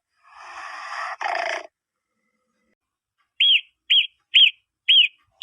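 A breathy, rasping animal sound lasting about a second and a half, then after a pause a bird giving four short arched chirps about half a second apart.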